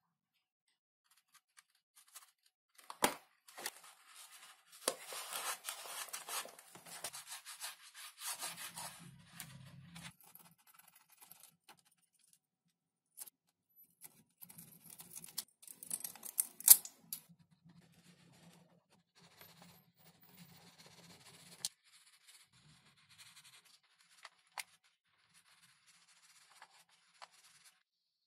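Intermittent scratching and rubbing with a few sharp clicks, the loudest about seventeen seconds in: hand work on a foam model airplane at the bench.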